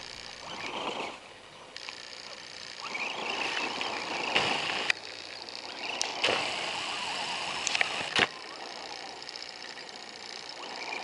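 Axial SCX10 RC scale crawler's small electric motor and gears whining in two spurts as it climbs. Its tyres scrabble over stones, with several sharp knocks as it bumps over rocks.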